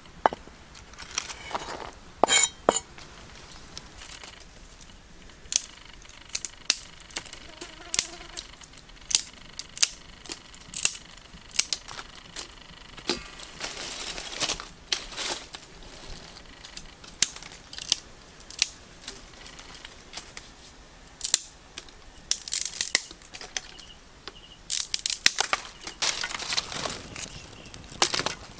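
A heavy knife chopping on a wooden cutting board, then dry twigs and leaves crunching, snapping and rustling as a small wood fire is laid in a stone hearth. There are scattered sharp crackles throughout, and twigs crackle as they catch fire near the end.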